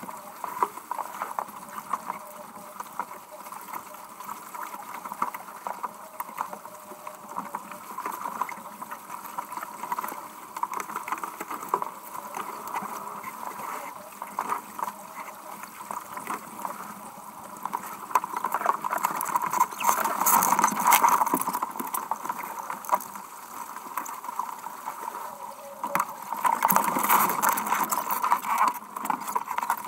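Water rushing and splashing against the hull of a Ridas 26 sailboat driving hard through waves, with wind buffeting the onboard camera. The splashing and wind noise swell louder about two-thirds of the way in and again near the end.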